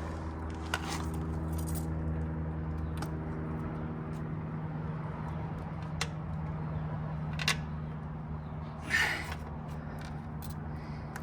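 Scattered light metallic clicks and clinks of a flathead screwdriver working a carburetor intake boot on the motorcycle, with a short scrape near the end, over a steady low hum.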